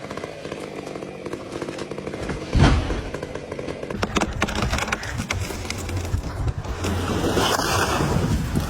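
Chainsaw engine running and cutting wood, with a heavy thump about two and a half seconds in; the saw gets louder over the second half.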